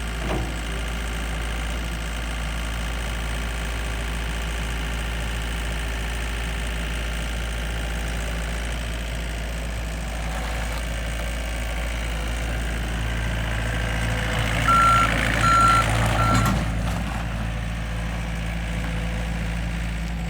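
Gehl R165 skid steer loader's diesel engine running steadily. About two-thirds of the way through it works harder, and the backup alarm gives three short beeps, then the engine settles back.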